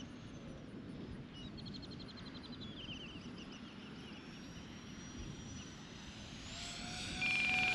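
Electric ducted fans of an E-flite A-10 twin 64 mm RC jet whining in flight, rising in pitch and growing louder near the end as the jet comes closer. A rapid electronic beeping starts near the end.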